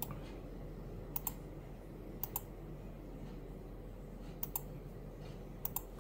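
A pause in the recitation filled by faint, sharp double clicks, about five pairs a second or so apart, over a steady low hum.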